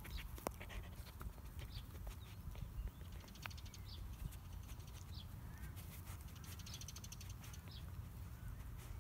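A dog chewing and tugging at fabric strips stuffed into a rubber treat ball, with quick faint clicks of its mouth and teeth, mostly in the first half. Short bird chirps come now and then in the background.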